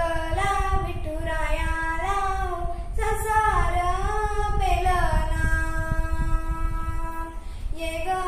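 A young girl singing a Marathi devotional gajar to Vitthal solo, in drawn-out melodic phrases, holding one long note about five seconds in. A low steady rumble sits underneath.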